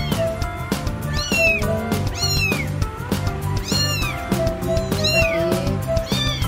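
A cat meowing repeatedly, about six short high-pitched rising-and-falling meows roughly a second apart, over background music with held notes and a steady beat.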